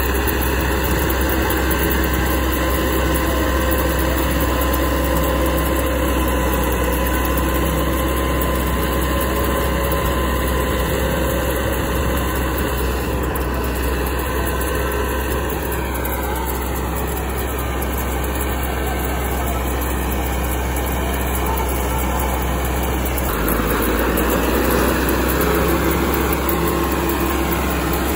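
Massey Ferguson 385 tractor's diesel engine running steadily under load while pulling a super seeder. The tone of the engine shifts about twenty-three seconds in.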